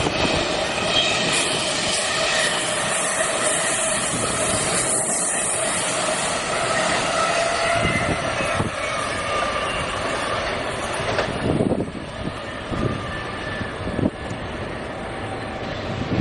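Amtrak passenger train of Amfleet coaches rushing past at speed: steady wheel and air noise with a thin ringing whine from the wheels on the rails. Later the noise falls away as the train recedes, with a few separate clacks as its wheels cross rail joints and switches.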